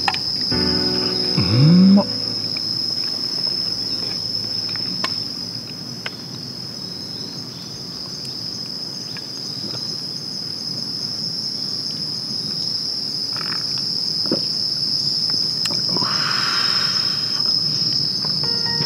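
Steady, high-pitched drone of insects in the woods. A bit of music with a swooping tone ends about two seconds in.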